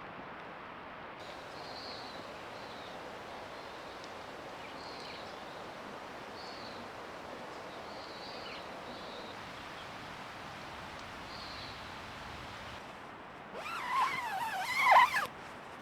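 Steady rain falling on the wet forest and tent, with faint short high chirps scattered through it. Near the end a louder, brief cry with a wavering pitch lasts for about two seconds.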